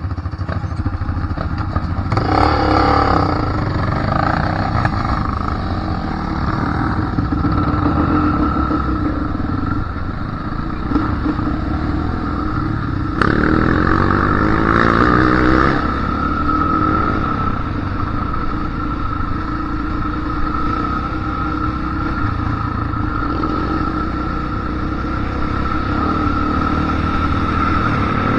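Dirt bike engine revving up and riding at speed, pitch rising through the revs about two seconds in and again about thirteen seconds in, over a steady low rumble.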